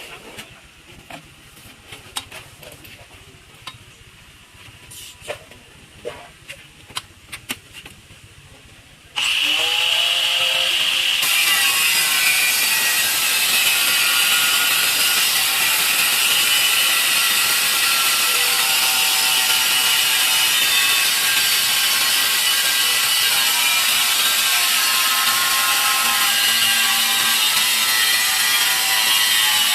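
A few light clicks and knocks, then about nine seconds in an electric tile-cutting saw switches on with a rising whine and runs loudly and steadily, its blade grinding with a harsh hiss as it saws.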